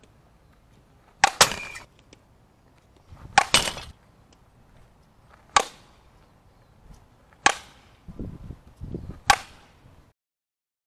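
Softball bat striking pitched balls: five sharp cracks of contact, about two seconds apart, the first with a quick second click just after it.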